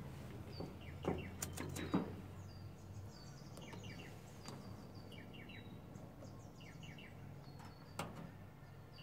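Small birds chirping faintly in short repeated calls, over a low hum that fades out about three seconds in. A few light clicks and taps come in the first two seconds and one more near the end, from multimeter test leads and plugs being handled on a breaker board.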